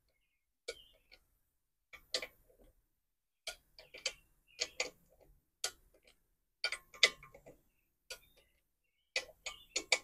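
Ratcheting torque wrench tightening valve cover bolts: light ratchet clicks in short clusters, about one cluster a second, as the wrench is swung back and forth.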